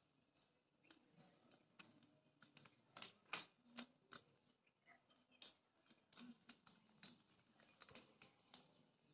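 A pigeon pecking at a window ledge: faint, irregular sharp taps and clicks, with a quick cluster of louder ones about three seconds in.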